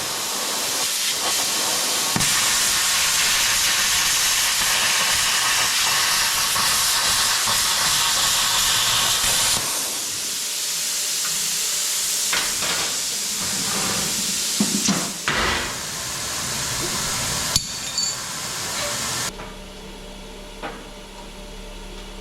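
Plasma cutter cutting a steel bracket, a steady hiss with a short change partway through and a few sharp clicks, stopping suddenly about 19 seconds in; a low steady hum is left after it.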